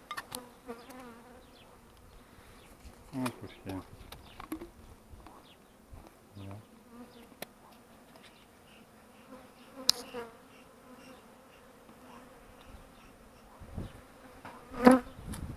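Honeybees buzzing at an opened hive, a steady hum, with a few brief knocks, the loudest near the end.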